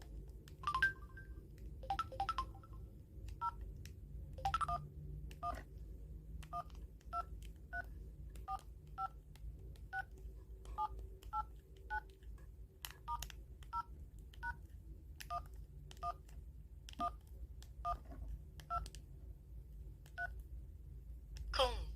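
Samsung Anycall SCH-S530 cell phone keypad beeping as its keys are pressed one by one: a long run of short two-tone dialing beeps, each with a faint key click, at an uneven pace of about one or two a second.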